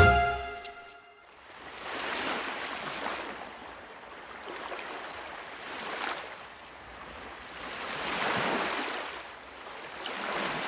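Sea waves washing in and drawing back, a soft rushing that swells and fades about four times. The last notes of music die away in the first second.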